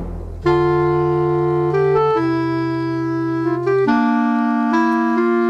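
Background music of held keyboard chords over a bass line, starting about half a second in and changing chord every second or so.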